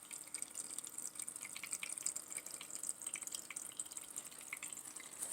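Small battery-operated tabletop water fountain running, with water trickling and splashing in a steady stream of irregular little drips.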